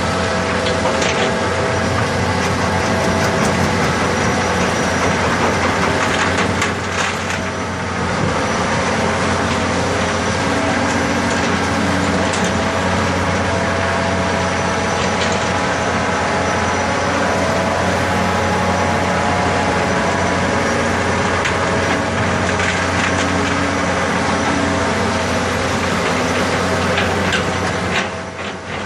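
A large dirt digger working: its engine runs loud and steady with a higher whine over it, and scattered crunching and cracking of material being dug. The machine noise briefly dips about seven seconds in and again near the end.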